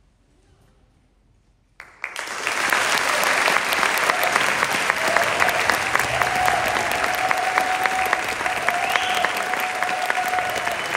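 Audience applause in a concert hall, bursting in suddenly about two seconds in after a brief hush at the end of the piece, then carrying on steadily.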